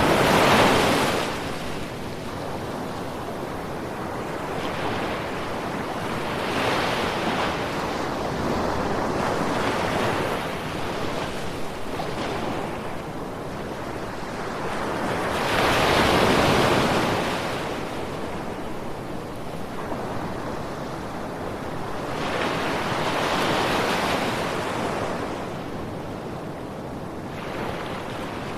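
Ocean waves breaking and washing on a beach, surging louder every several seconds, with four big swells and a steady wash between them.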